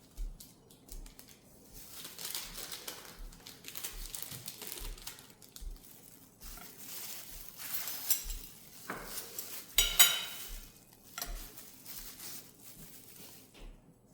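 Kitchen work with dishes and utensils: scattered clinks, scrapes and rustling, with one sharp ringing clink of metal or crockery about ten seconds in.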